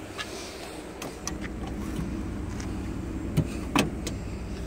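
Low steady rumble of an idling vehicle engine, with several sharp taps and clicks; the two loudest come near the end as a hand handles the pickup's fuel filler door.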